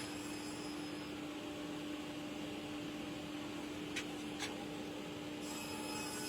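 Steady background hum with one held tone and an even hiss, like a fan or electrical appliance running, with two small clicks about four seconds in.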